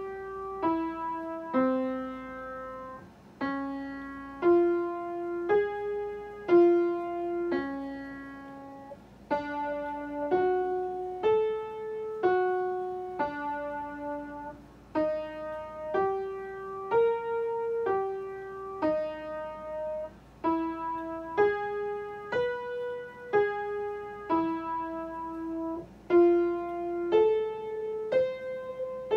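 Piano playing major arpeggios slowly and evenly, one note at a time, the notes climbing and falling within about an octave.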